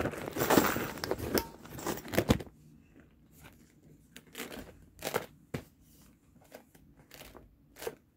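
Crinkling and rustling of a plastic bag and gift wrapping as a handbag is pulled out, stopping after about two and a half seconds. Then come a few scattered light clicks and taps as the bag and its metal chain strap are handled.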